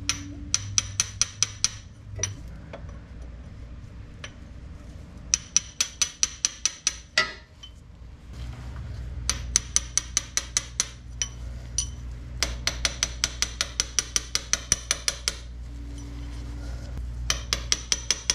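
Metal tool tapping on a socket-and-extension used as a seal driver, seating a new axle seal into the manual transmission case. The taps come quickly, about six a second, in five runs of one to three seconds each with short pauses between them.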